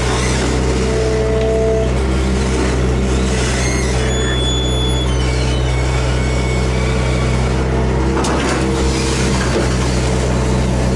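Hydraulic excavator's diesel engine running steadily, heard from inside the operator's cab as the machine digs and swings a bucket of soil. A brief high whine comes in about four seconds in, and a sharp knock sounds just after eight seconds.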